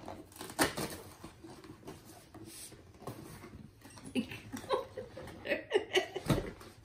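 Cardboard advent calendar box being handled as a compartment flap is pushed open: scattered rustles, scrapes and light knocks, busier in the second half.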